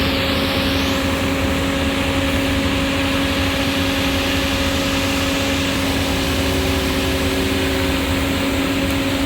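Laverda Fiatagri 3790 combine harvester running steadily, its diesel engine and threshing machinery holding a constant hum with a steady drone.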